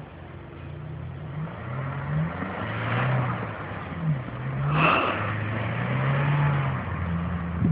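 Car engine revving up and easing off several times, struggling for grip in snow, with a brief louder rush about five seconds in.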